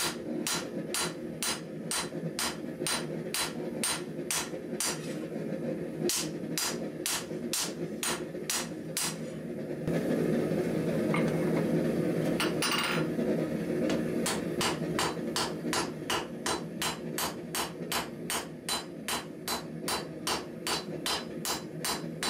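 Forging hammer striking a red-hot steel knife blade on an anvil: a steady run of sharp, ringing blows, about two to three a second, with a break of a few seconds about ten seconds in.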